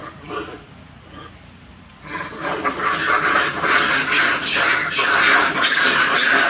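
Leaves and branches rustling and crackling loudly as macaques climb and move through the tree canopy, starting about two seconds in.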